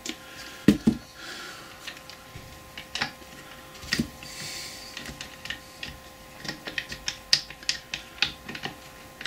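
Steel gears and shaft of a Boxford lathe's lead screw gearbox clicking and clinking against each other and the cast-iron housing as they are eased into place by hand: scattered sharp metal clicks with a louder knock about a second in, coming closer together in the last few seconds. A faint steady hum runs underneath.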